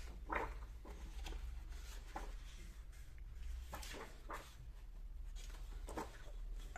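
Pages of a paper colouring book being turned and handled, with soft paper rustles and light taps every second or so.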